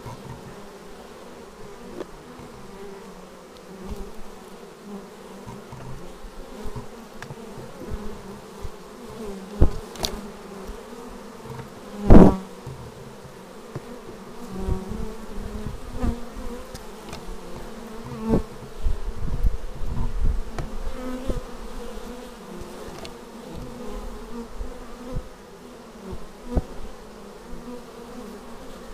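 Honeybees buzzing at the hive entrance: a steady hum from the crowd of bees, with individual bees flying close past the microphone now and then. The loudest close buzz comes about twelve seconds in.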